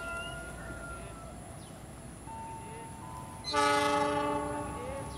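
A CC 206 diesel-electric locomotive's horn sounds one steady, chord-like blast about three and a half seconds in, lasting about a second and a half as the train approaches the station.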